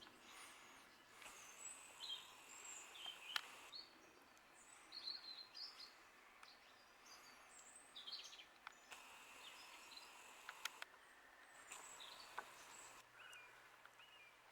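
Faint birdsong: small birds chirping and trilling in short, scattered high notes over a quiet background hiss.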